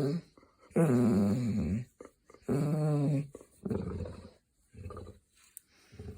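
Hound dog grumbling in long, pitched, Chewbacca-like vocalizations: two strong calls of about a second each, then several shorter, quieter ones.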